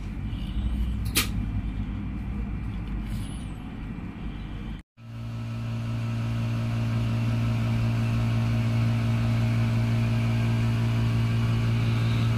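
Low rumble with a single sharp click about a second in, then, after a brief dropout near five seconds, a steady machine hum with a deep, even drone.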